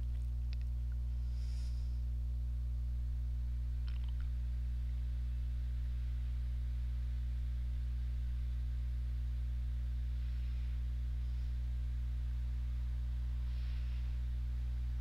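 Steady low hum with no change in pitch or level, and a couple of faint clicks in the first few seconds.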